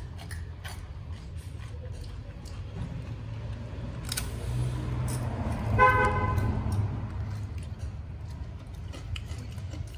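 Newborn puppy giving one short, high-pitched squeal just before six seconds in, over a steady low rumble and scattered faint clicks from the suckling litter.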